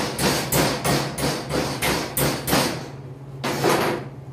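A hand tool scrubbing or striking the steel frame of a deer stand seat in quick, even strokes, about three a second. The strokes stop nearly three seconds in, and one more short stroke follows about half a second later.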